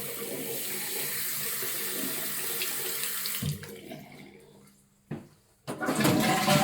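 Hot water running from a tap, fed by a propane water heater. The flow fades out about three and a half seconds in, there is a second of silence, then running water comes back loudly near the end.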